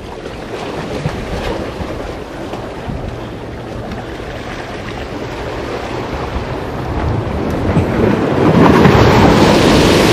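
Sea waves washing against a concrete tetrapod breakwater, with wind buffeting the microphone, building to a loud wave crash near the end.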